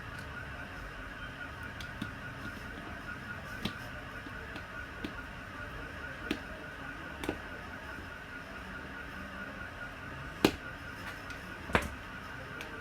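Light, scattered clicks and taps of small plastic parts being handled, about eight in all, the loudest two near the end, over a steady faint hum.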